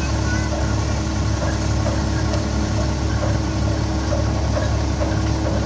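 Steady drone of a Farmtrac tractor engine running the grain thresher beside it, the thresher's drum and blower turning at a constant speed.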